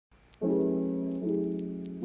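Background music of slow piano chords: one chord comes in about half a second in and a second follows just after a second, each ringing on and fading.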